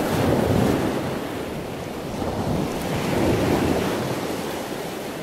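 A rushing noise that swells and eases twice, fading away near the end.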